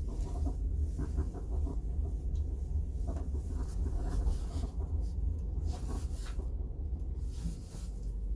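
Irregular creaks and rattles from the rear of a 2007 Infiniti FX35, heard from inside the cabin over a steady low road rumble.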